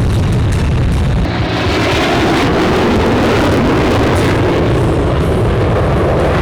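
Loud jet roar of a military jet, an F-16 of the Thunderbirds display, passing overhead: a rushing noise that swells about a second in and holds before easing near the end.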